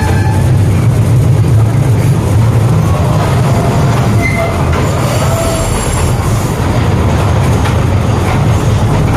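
Amusement-park toy train running along its track with a steady low rumble, and brief high wheel squeals about four and five seconds in.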